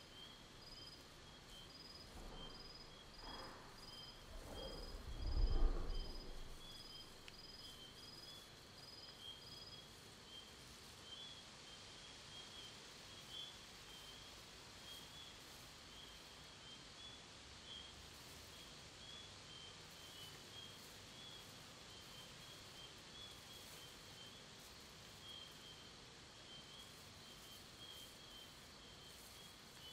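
Quiet designed fantasy-forest ambience: a deep wooden creaking groan swells over a few seconds and ends in a heavy low thud, the sound of a giant tree shifting and stepping. Insects chirp in a steady repeating pattern over a faint hiss, and one of the higher chirping series stops about ten seconds in.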